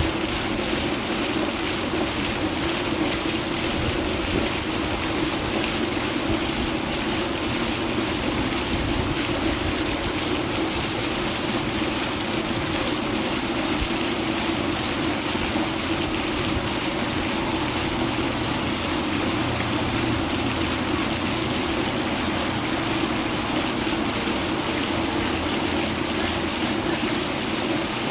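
Steady, even rushing noise with a low hum under it, unchanging throughout, with no distinct calls or knocks.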